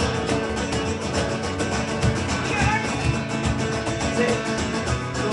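Live band music: acoustic guitars strumming a steady rhythm in an instrumental stretch of the song.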